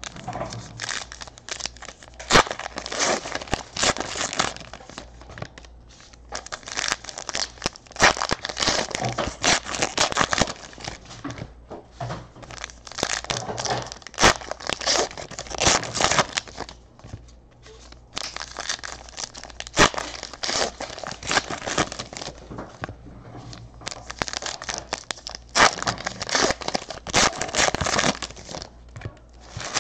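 Sports card pack wrappers being torn open and crinkled by hand, in about five bouts of tearing a few seconds each, with short quieter gaps between.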